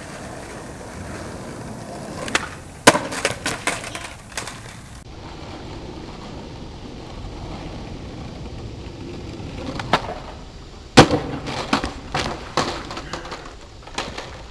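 Skateboard wheels rolling on concrete, broken twice by sharp clacks of the board slamming down and clattering across the pavement. The loudest clack comes about 11 seconds in, with smaller clatters after it as the trick fails and the rider falls.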